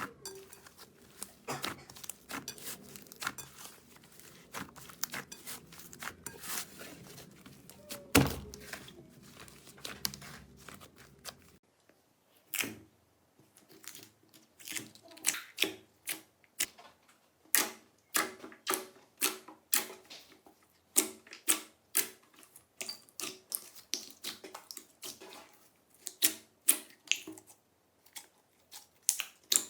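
Slime being handled by hand, squished and pressed, with a dense run of sticky clicks and crackles and one loud thump about eight seconds in. In the latter part the clicks turn into sharp pops, about two a second.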